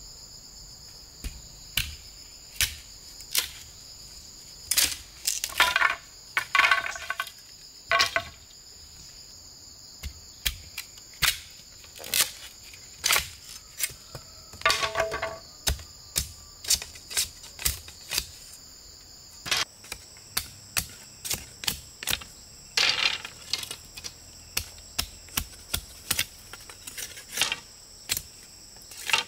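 Steady high-pitched insect chorus, with a run of sharp knocks and taps over it, coming irregularly at about one or two a second, some with a brief ringing tone.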